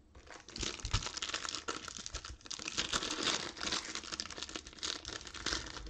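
The clear plastic wrapper of a trading-card pack crinkling and tearing as it is pulled open by hand. It makes a dense, irregular run of small crackles.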